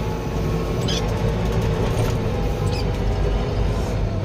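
Tractor engine running steadily under load while its front-end loader pushes snow, heard from inside the cab. A couple of short clicks and a brief high squeak sound over it.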